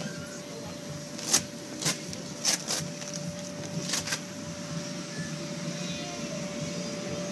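Electric blower of an inflatable bounce house running with a steady hum and a constant tone. About five sharp taps or knocks come between about a second and a half and four seconds in.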